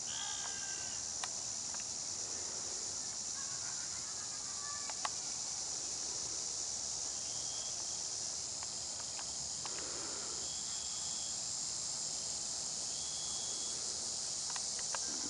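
Steady, high-pitched chorus of insects, with short higher chirps repeating every couple of seconds and two sharp clicks early on.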